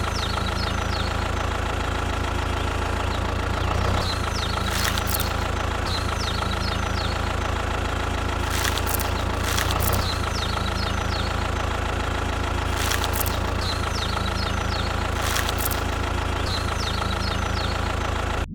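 Vehicle engine idling steadily, an even low hum that does not change.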